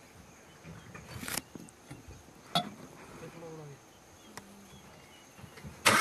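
Faint outdoor ambience with a thin, steady insect whine and a few brief, low murmured voices, with a soft rustle about a second in and a sharp click a little later. Just before the end, a vehicle engine starts loudly.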